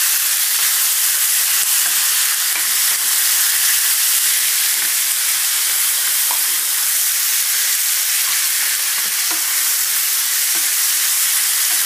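Diced lamb frying in hot oil in a pan, with a steady sizzle, while a wooden spatula stirs it and taps the pan lightly now and then.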